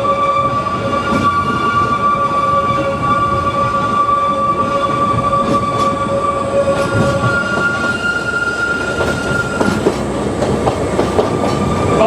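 Oigawa Railway Ikawa Line train running, heard from on board: a steady rumble with a high, steady wheel squeal on a curve. The squeal changes pitch a little after halfway, then returns to its first pitch near the end. A few faint wheel clicks come through the rumble.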